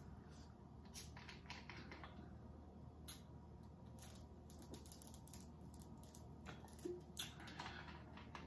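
Quiet, scattered small clicks and crackles from handling a small plastic water bottle as its cap is twisted and it is drunk from.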